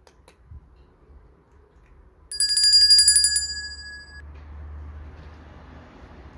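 A bell sound effect: a fast trill of bell strikes lasting about a second, starting a couple of seconds in, then ringing briefly as it dies away, over a low background rumble.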